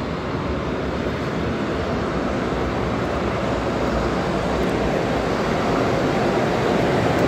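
BDZ class 44 electric locomotive 44 126 pulling out of the station at the head of a passenger train, a steady low rumble of wheels and running gear that grows gradually louder as it draws closer.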